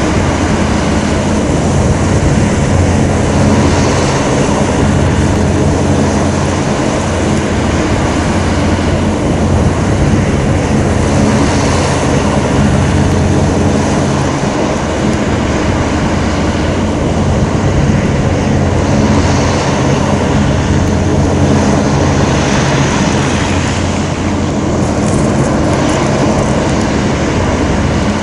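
Griffon 1200TD hovercraft running at speed: its pair of MAN diesel engines and variable-pitch propellers make a loud, steady drone with a low pitched hum, over a continuous rushing noise.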